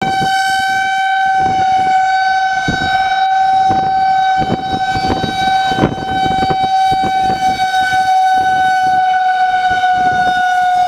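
Outdoor tornado warning siren sounding one steady, held tone, the alert for a tornado warning, with irregular thumps and crackles underneath.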